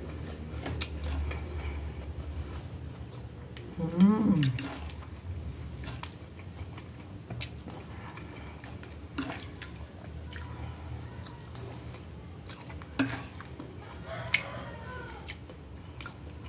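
Eating sounds: quiet chewing and a few sharp clinks of a fork against a plate, the clearest near the end. About four seconds in, a short voice-like sound that slides up and down in pitch is the loudest moment.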